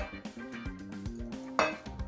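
Background instrumental music: a melody of short stepped notes over a steady low bass, with a sharp loud hit near the end.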